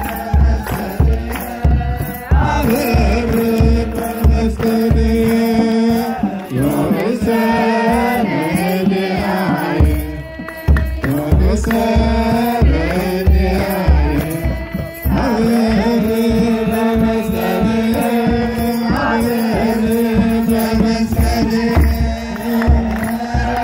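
A large kebero drum beaten in a steady pulse under a group of men chanting in unison, holding long notes with sliding ornaments, in the style of Orthodox Tewahedo church chant. The drumming drops out briefly twice, about ten and fifteen seconds in.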